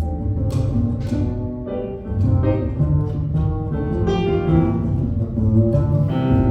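Live acoustic band playing an instrumental passage of the song, with guitar and bass carrying it.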